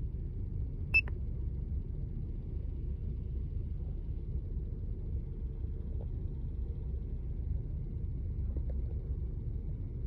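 A single short, high electronic beep from a Superchips Flashpaq F5 tuner about a second in, as its OK button is pressed to confirm installing a tune. A steady low rumble runs underneath.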